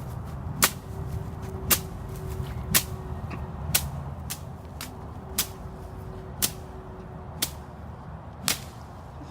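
Sharp cracks, evenly spaced about once a second, over a steady low rumble, the later cracks a little softer.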